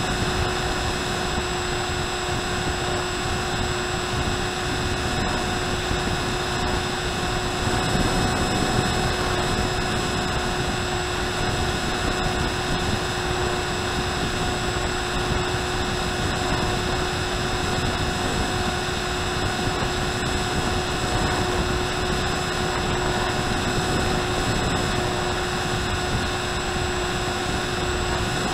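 RMRC Penguin FPV plane's electric motor and pusher propeller, heard through the onboard Mobius camera in cruising flight: a steady whine holding one pitch over wind noise, which swells slightly about eight seconds in.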